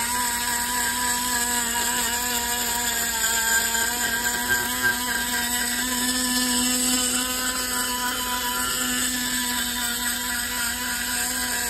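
A motor running steadily at one constant pitch: an even mechanical drone with several steady tones.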